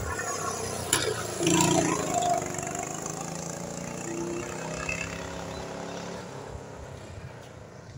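Go-kart engines running as karts lap the track, the engine note wavering slightly and fading toward the end as a kart pulls away. A sharp click about a second in.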